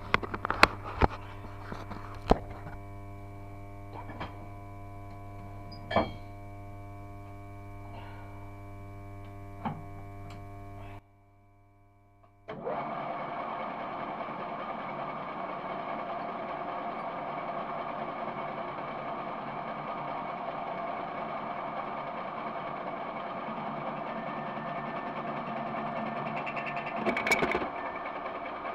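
Sharp knocks and clicks of work being set up over a steady electrical hum. After a brief break, a lathe runs steadily with a whining, even machine tone that swells briefly near the end.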